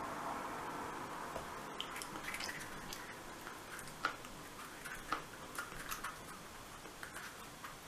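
Faint steady hiss with scattered small clicks and squishes: fingers pressing and fitting plastic googly eyes against the eye sockets.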